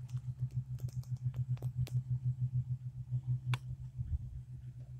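Two distant rice combine harvesters running: a steady, low, pulsing engine drone, with a few sharp clicks.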